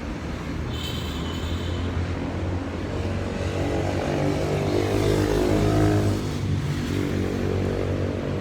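A motor vehicle's engine running with a steady low hum, its pitch rising and swelling for a few seconds in the middle and then easing off. A brief high-pitched sound about a second in.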